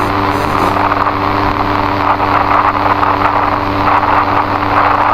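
A loud, steady drone of dense noise with a low humming tone underneath, like an engine-like rumble.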